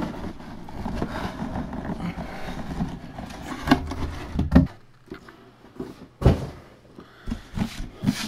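Cardboard boxes being handled: an inner helmet box is worked out of its outer cardboard box, with continuous scraping and rustling for about four seconds, then several separate dull knocks as the box is set down and moved.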